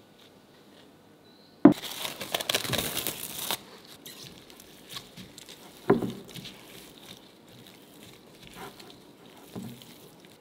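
Parchment baking paper crinkling loudly for about two seconds as it is handled. A single knock follows near the middle, then softer sounds of gloved hands working stiff cookie dough in a glass bowl.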